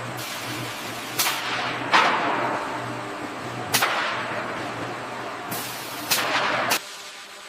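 A series of about six sharp cracks, each trailing off in a hiss, the loudest about two seconds in, over a low steady hum that cuts off near the end.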